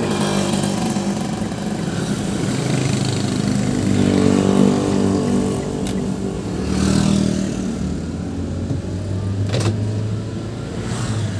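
Car engine and road noise heard from inside the cabin while driving in town traffic, the engine note rising as the car picks up speed twice. A single sharp click or knock comes about two seconds before the end.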